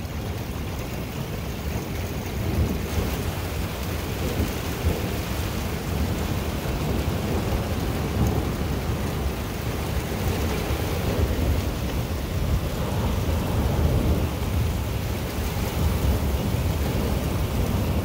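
An arriving thunderstorm: a steady rush of wind and rain with low rumbling underneath, swelling and easing a little now and then.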